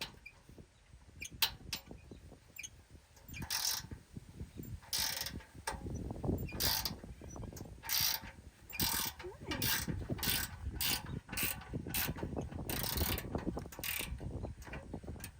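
Hand ratchet wrench being worked on a bolt, its pawl clicking through repeated strokes, about one a second from a few seconds in.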